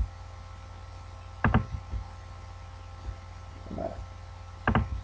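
Computer mouse clicking: a quick pair of sharp clicks about a second and a half in, one more shortly after, and another pair near the end, over a steady low electrical hum.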